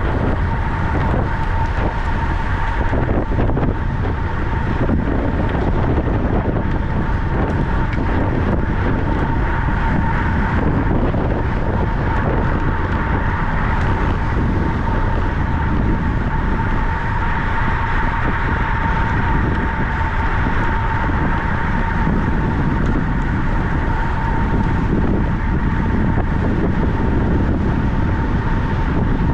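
Steady wind rushing over the microphone of a track bicycle riding at speed, with a thin high whine running through it.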